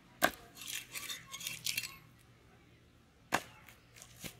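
A sharp click, then about a second of scattered crackling clicks, then two more sharp clicks near the end.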